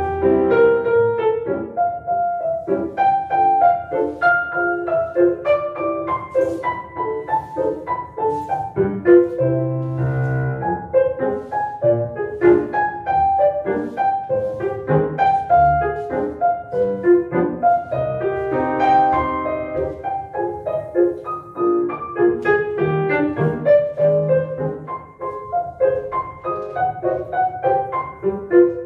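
Piano playing classical music, accompaniment for ballet barre exercises.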